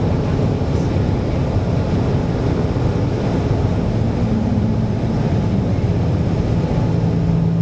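Hydrofoil's engines running steadily, a loud, dense drone with a low hum beneath and water rushing. A steady low-pitched hum sets in near the end.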